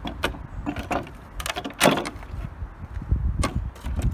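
Pallet breaker bar prying boards off a wooden pallet: the nails squeak and creak as they pull out of the wood, in several short squeals, the loudest about two seconds in, over a steady low rumble.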